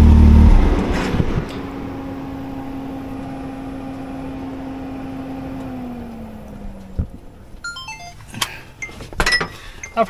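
Can-Am X3 side-by-side's engine running, then switched off about half a second in. A steady whine hangs on and slides down in pitch around six seconds, then a short run of electronic beeps and a few clicks and knocks come near the end.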